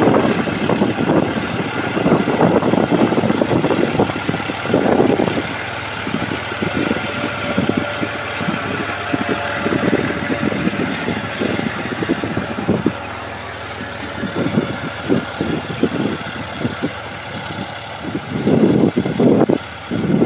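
Farm tractor's diesel engine running steadily under load as it pulls a cultivator through tilled soil, with uneven surging noise over it.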